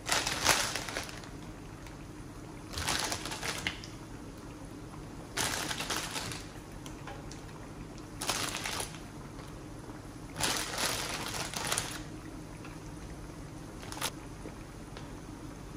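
Water crackers being laid one at a time onto a pan of simmering steamed-fish broth: a steady low simmer, with about five short rustling, splashing bursts spaced two to three seconds apart.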